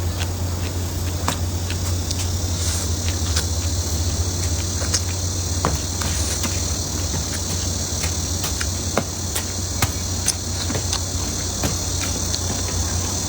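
Eating sounds, scattered short clicks and smacks of chewing and utensils, over a steady high insect chirring and a low steady hum.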